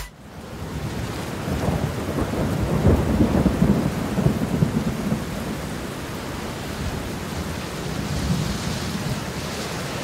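Steady rain with a low roll of thunder that swells and fades over the first half.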